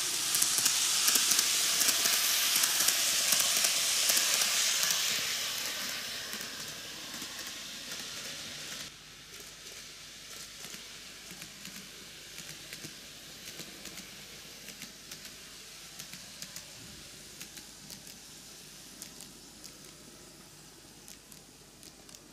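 N-gauge model train (TOMIX Kintetsu 80000 series Hinotori, six cars) running on its track: a steady whir and rush of the motor and wheels on the rails, loud at first as the lead car passes close, fading from about five seconds in and dropping away about nine seconds in, leaving faint clicking as it runs on round the oval.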